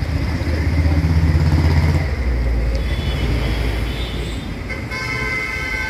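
Street traffic: a motor vehicle's engine passes close by with a low rumble that swells in the first two seconds. Near the end, a vehicle horn sounds for about a second.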